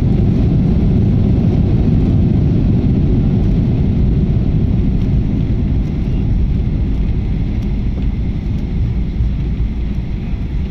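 Airliner cabin noise as the jet rolls along the runway after landing: a loud, steady low rumble of engines and wheels, heard from inside the cabin, slowly easing off near the end.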